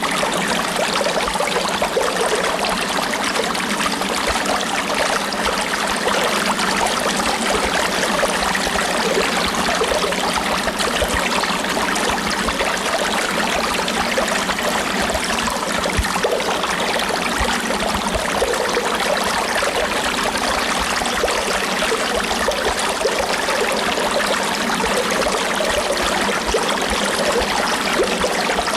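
River stream flowing: a steady, even rush of water with fine splashing and trickling, unchanging throughout.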